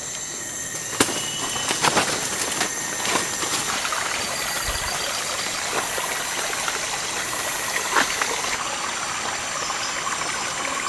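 Steady rush of a small forest stream running over rocks, getting louder over the first few seconds, with a few sharp snaps and crunches of footsteps on leaf litter.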